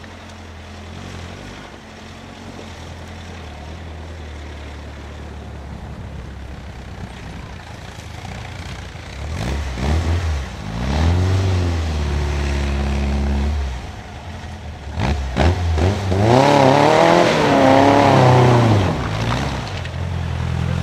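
A 2000cc VW Beetle trials car's engine revving hard as it climbs a rough track. It runs steadily at first, then swings up and down in pitch in two loud surges, the louder one near the end as the car comes close.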